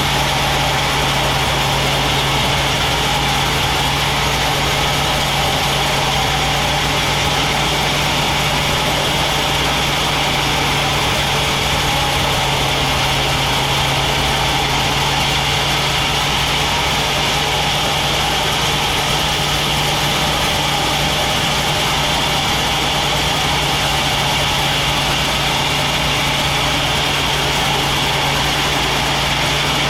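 Sawmill machinery running steadily: a loud, constant mechanical hum that does not change.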